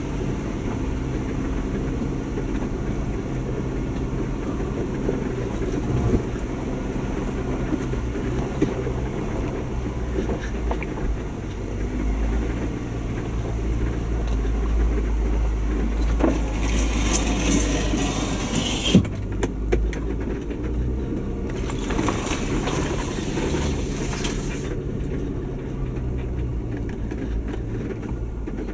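Jeep Wrangler's engine running at low speed as it crawls along a rough off-road trail, with occasional knocks. A little past halfway there are two stretches of hissing noise, each a few seconds long.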